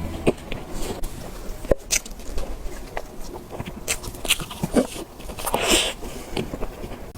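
Close-miked eating of desserts: a string of bites, clicks and chewing noises, with a longer, louder noisy bite about five and a half seconds in.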